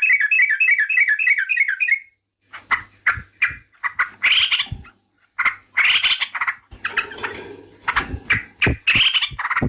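Yellow-vented bulbul (trucukan) singing: a fast bubbling trill of repeated notes for about two seconds, then a run of short, separate call notes and harsher chattering bursts.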